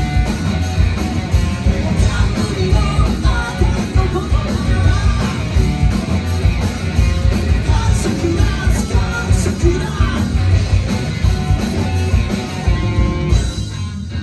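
Rock band playing live at full volume: drums, bass and electric guitars under a sung lead vocal. Just before the end the drums and bass drop out, leaving guitar alone.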